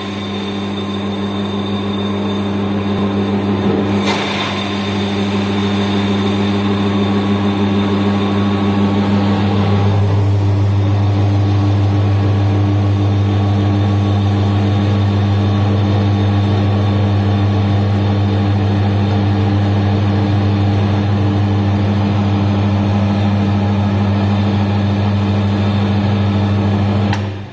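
Electric potato grinding machine's 3 hp motor running with a steady, loud hum. There is a brief knock about four seconds in, and the sound cuts off suddenly near the end as the machine is switched off.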